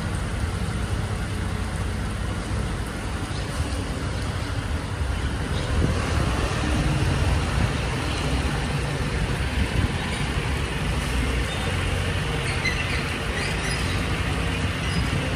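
Diesel engine of a Mercedes-Benz rear-loader garbage truck running with a steady low rumble as the truck pulls slowly forward, getting somewhat louder about six seconds in.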